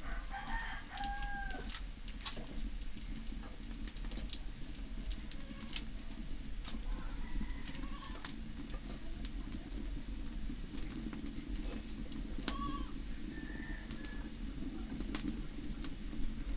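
Scattered pops and crackles from garlic and dried red chillies frying in oil in an aluminium kadai over a wood fire. A chicken clucks near the start and again about two-thirds of the way through.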